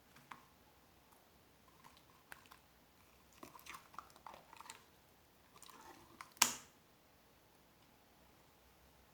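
White slime being squeezed and worked by hand: scattered soft pops and squishy crackles, bunched in the middle, with one louder sharp pop about two-thirds of the way through.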